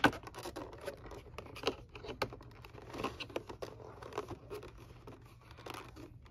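Hands handling a clear plastic locomotive display case: scattered light clicks, taps and crinkles of the plastic, over a steady low hum.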